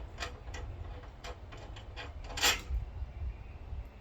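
Hand tools clicking and clinking against metal while the strut tower cross brace is being unbolted, with one louder metallic clink about two and a half seconds in.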